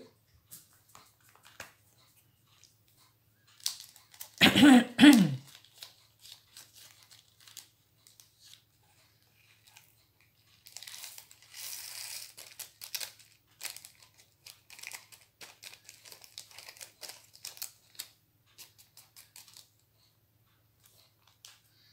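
Crinkling of a small plastic bag and light ticking of tiny diamond-painting rhinestone drills being tipped into a plastic storage-box compartment, with small plastic clicks scattered throughout. A short vocal sound about four and a half seconds in is the loudest thing.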